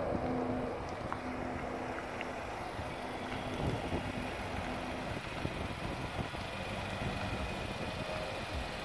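Nissan Titan pickup's V8 engine running at low speed and idling as the truck creeps up and stops alongside, a steady low hum.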